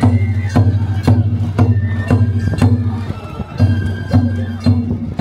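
Hikiyama festival music (bayashi) of taiko drums and bamboo flute: drum strikes fall about twice a second, with a brief pause near the middle, under a high flute melody.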